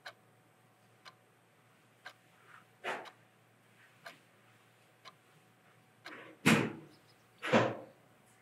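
Wall clock ticking about once a second in a quiet room, with a few heavier footsteps, the two loudest about six and a half and seven and a half seconds in.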